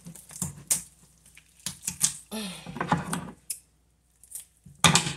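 Kitchen scissors snipping through the bones of a raw whole chicken: a series of sharp snips and crunches, the loudest near the end.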